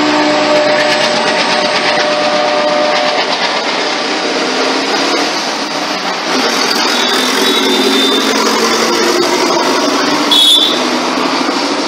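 Road traffic passing close by: a car, a truck and motorcycles running past, with a train horn's last held notes fading out in the first few seconds. Two short high-pitched beeps sound about seven and ten and a half seconds in.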